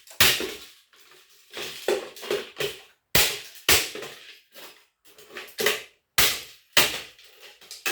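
A hatchet chopping into a small electric motor to break it open for its copper windings: about a dozen sharp blows at an uneven pace, each with a short metallic ring.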